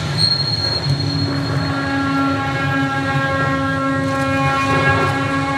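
Runway show soundtrack played over the venue's speakers: a low rumbling drone, a thin high tone that fades after a second or so, and a steady horn-like tone that enters about a second in and holds.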